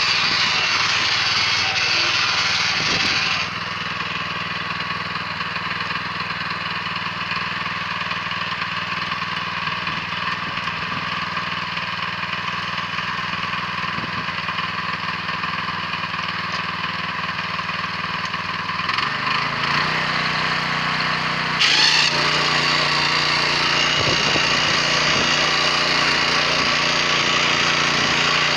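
Weima 1000N walk-behind tractor's single-cylinder engine running steadily under load while tilling. It gets quieter a few seconds in, then its pitch shifts and it grows louder again about three quarters of the way through.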